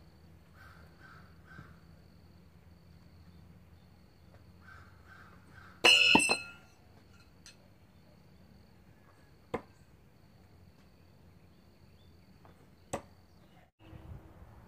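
Steel throwing knives striking a wooden log target: about six seconds in a loud metallic clang that rings briefly, then two sharp single knocks a few seconds apart as more knives hit. A faint steady insect whine and a few distant bird calls lie underneath.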